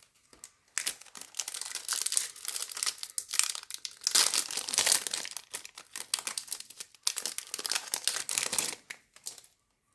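Foil trading-card pack wrapper crinkling as it is handled, in three long stretches of crackling.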